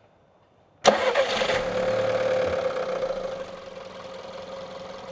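Volkswagen Golf 1.2 turbocharged petrol engine starting about a second in, running fast for a couple of seconds after it catches, then settling to a steady idle.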